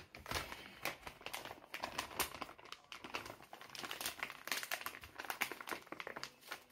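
Shiny metallic foil gift bag crinkling and rustling as a hand rummages inside it and pulls it open, with irregular crackles throughout.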